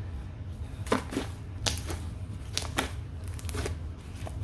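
Sticky, inflated jelly slime being folded and pressed by hand, giving about half a dozen sharp, irregular pops and crackles. It is sticky from too much vegetable glycerin.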